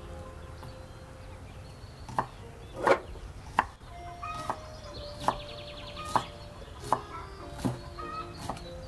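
Kitchen knife chopping green onions on a wooden cutting board, in slow, even strokes about one a second that begin about two seconds in.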